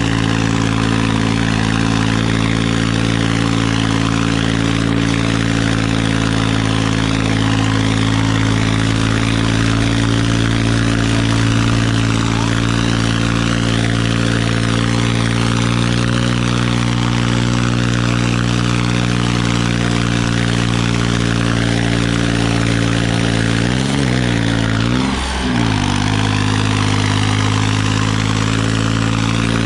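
Massey Ferguson 9500 tractor's diesel engine running steadily under heavy load while dragging two disc harrows through soil. Its pitch briefly sags and picks back up twice near the end.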